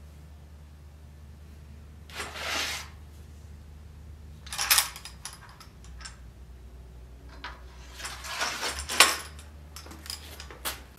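Metal clinks and scrapes as a steel sword blade and its hilt fittings are handled. A scraping swish about two seconds in, a sharp clink near the middle, and a run of scrapes and clinks near the end.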